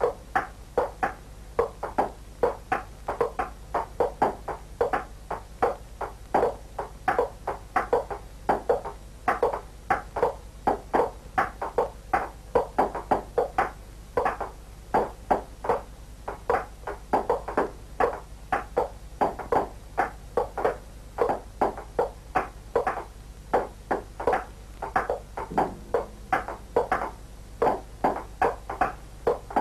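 A steady, even run of short knocks, about two to three a second, changing in pitch from one knock to the next, over a low hum.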